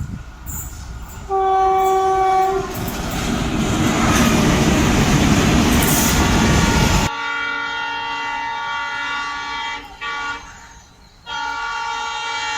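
Indian Railways locomotive horn sounding a short blast, then the loud rush of a train passing close at speed. After an abrupt cut, a locomotive horn sounds long blasts, broken twice.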